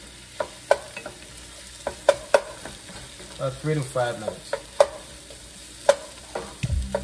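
Wooden spoon stirring sliced mushrooms and shallots in a frying pot, knocking against the pot with sharp clacks every second or so, over a faint sizzle of frying.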